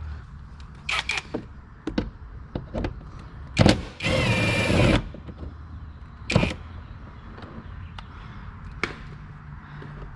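A cordless drill-driver runs for about a second, about four seconds in, amid scattered sharp clicks and knocks of tools and trim being handled.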